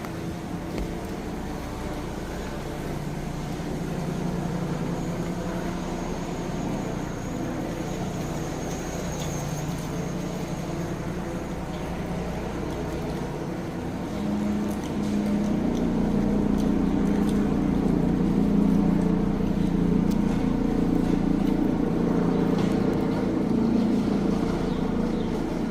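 City street traffic: a motor vehicle's engine runs with a steady low hum, getting louder about halfway through as it comes closer.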